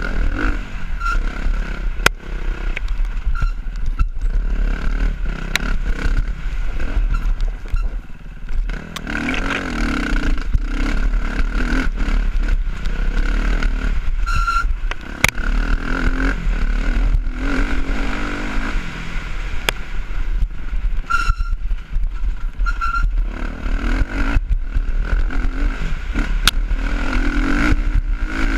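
Off-road motorized vehicle's engine running and revving up and down continuously while riding over rough dirt trail, with clattering and scraping and several sharp clicks over heavy low wind rumble on the microphone.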